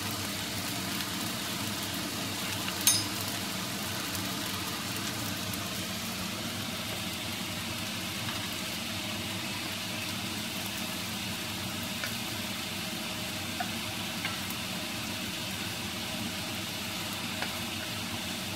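Steady sizzling hiss from a hot pan of egg fried rice, with one sharp knock about three seconds in and a few light clicks later as the rice is tipped out.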